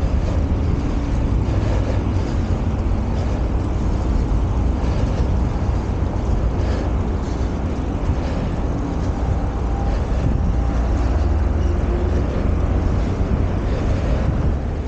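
Wind buffeting the microphone during a bicycle ride: a steady low rumble.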